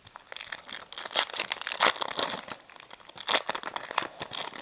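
Foil wrapper of a Bowman trading card pack being torn open and crinkled in the hands: a quick, irregular run of crackles and rips.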